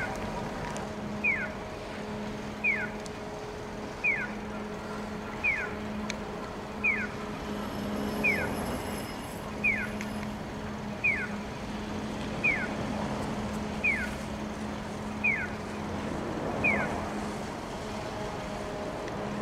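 Electronic chirp of an audible pedestrian crossing signal: a short falling tone repeated about every second and a half, thirteen times, then stopping near the end, over steady street traffic noise and a low hum.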